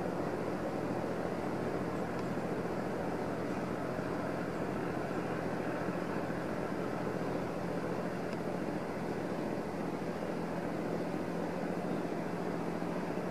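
Steady, even drone of distant engines with a faint low hum, unchanging throughout.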